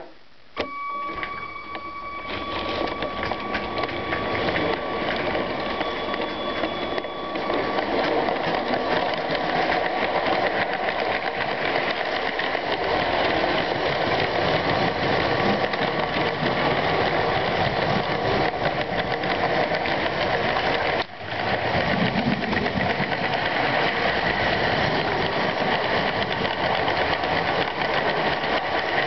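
Electric motor of a LEGO train whirring as it sets off and picks up speed, with wheels rattling over plastic track, heard up close from a camera riding on the train. The sound builds over the first several seconds, then runs steadily, cutting out for an instant about two-thirds of the way through.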